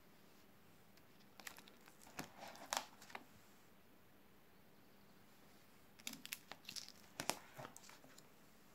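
Plastic sheet-protector pages in a ring binder crinkling and rustling as they are turned, twice: a burst of crackles about a second and a half in and another about six seconds in.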